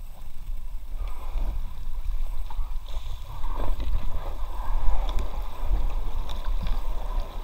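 Brook water rushing and splashing around an inflatable kayak, with a low rumble on the microphone and a few light knocks.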